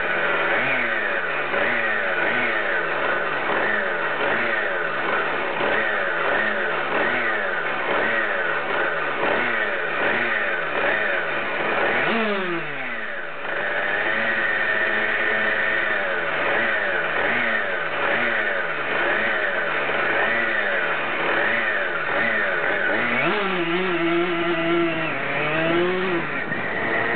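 Tuned 70cc Minarelli Stage6 two-stroke moped engine with an Ftt7014S expansion exhaust, revved at a standstill: the revs rise and fall in quick repeated sweeps, about one a second. Near the end the revs hold steady for a few seconds, then climb again.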